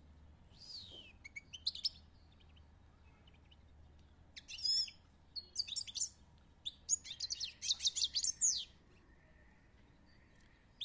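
European goldfinch singing: short phrases of quick high chirping notes about half a second in and around four and a half seconds, then a longer run of rapid notes from about seven to eight and a half seconds.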